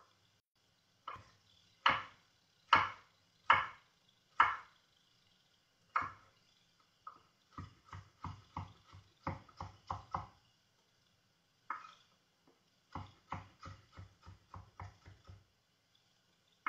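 Kitchen knife cutting carrots on a wooden cutting board. It starts with several heavy, separate chops about a second apart, then goes into two quicker runs of lighter strokes.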